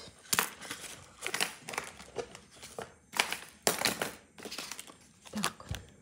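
A series of short crinkling, rustling noises of thin crinkly material, paper or plastic, being handled close to the microphone.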